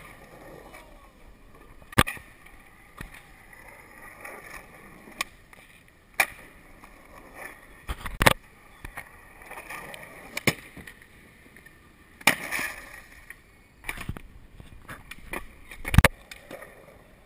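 Skateboard wheels rolling over concrete, broken by repeated sharp clacks and slaps of boards striking the ground, the loudest about two, eight, twelve and sixteen seconds in.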